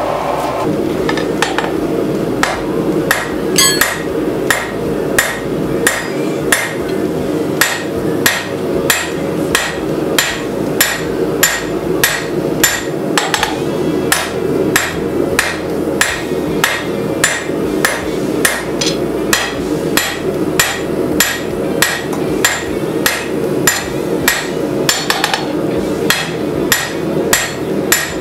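Hand hammer striking red-hot 1¼-inch rebar on a steel anvil, forging it out: a steady run of blows, a little under two a second, over a steady low rumble.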